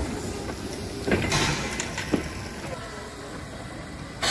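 Small steam tank locomotive hissing steadily from its cylinders, with people's voices mixed in.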